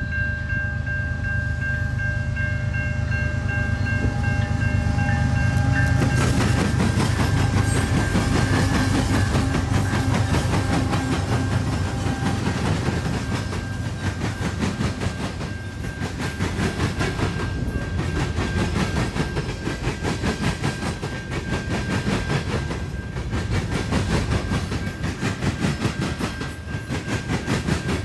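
Train passing close by: low rumble with steady high tones for the first few seconds, then, about six seconds in, dense clattering of wheels over the rails, with one steady high tone ringing through.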